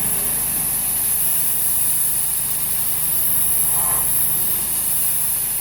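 Pressure washer running steadily: an engine hum under the hiss of a moderate-pressure water jet spraying brick.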